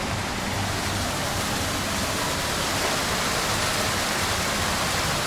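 Fountain water jets splashing into a stone basin: a steady rush of falling water.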